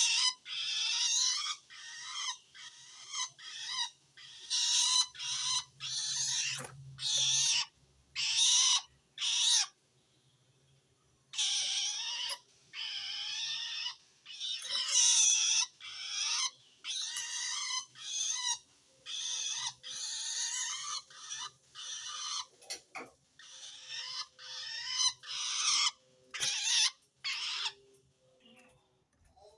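Long-tailed shrike (cendet) giving a long series of harsh, rasping calls in quick succession, with a short pause about ten seconds in. This call is taken as the sign of a shrike that feels threatened by another shrike.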